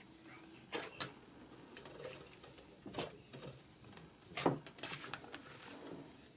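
Soft, thick cloud cream slime being squeezed, pressed and stretched by hand: faint squishing with a few short sharp clicks and pops, near the start, in the middle and again about four and a half seconds in.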